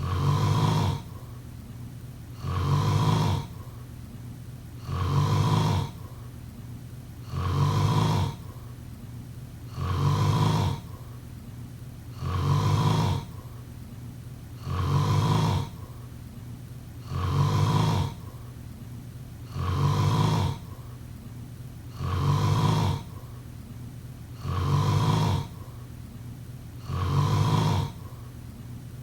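A person snoring in a slow, very regular rhythm, one snore about every two and a half seconds, twelve in all, over a faint steady low hum.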